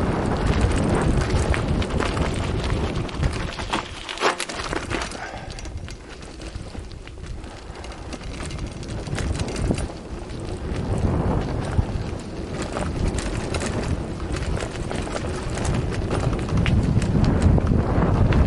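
Wind buffeting the camera microphone while a mountain bike rolls along a gravel road, with tyres crunching on loose stones and frequent small clicks and rattles from the bike. The wind noise eases a few seconds in and builds again toward the end.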